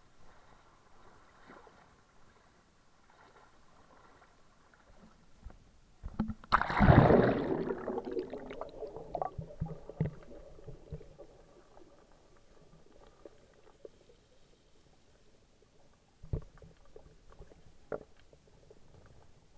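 Splash and rush of water over an SJ4000 action camera as it is plunged underwater about six seconds in, fading over a few seconds. Faint underwater ambience follows, with a couple of sharp knocks near the end.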